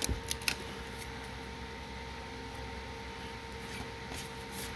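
Room tone: a steady hum with a faint constant tone under it. A few soft clicks and rustles of Magic: The Gathering cards being handled come at the start and again near the end.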